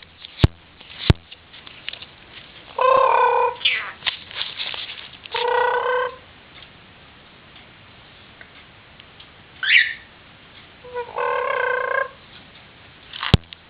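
Peach-fronted conure giving three harsh, even-pitched calls about a second long each, with a short rising chirp between the second and third. There are a few sharp clicks near the start and the end.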